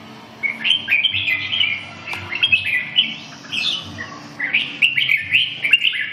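Red-whiskered bulbuls singing quick, bright chirping phrases in three bursts with short pauses between them, caged males sparring in song against each other.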